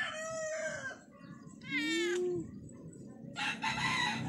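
Roosters crowing, several separate calls one after another.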